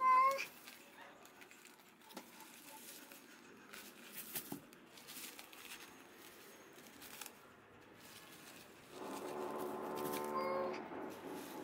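Newborn kitten giving a short, high mewing cry right at the start, the loudest sound, as it is handled. Soft rustling of paper and cloth with a few light clicks follows, then about nine seconds in a longer, lower animal cry lasting about two seconds.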